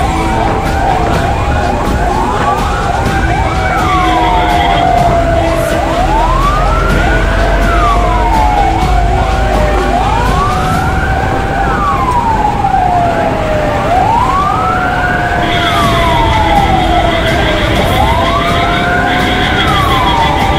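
Ambulance siren wailing, its pitch sweeping up and down about every four seconds over steady engine and road rumble, heard from inside the cab. A steady high tone joins about three-quarters of the way in.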